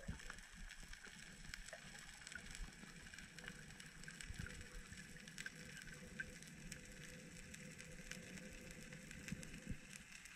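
Faint underwater ambience heard through a diving camera's housing: a low hiss with many small scattered clicks and crackles, and a faint steady tone midway through.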